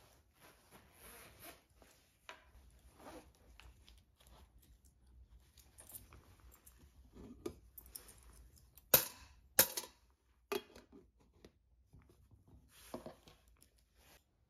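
A metal cocoa tin used as a coin bank being handled: the lid worked off and back on and the coins inside shifting, with two sharp metallic clinks a little over half a second apart about nine seconds in.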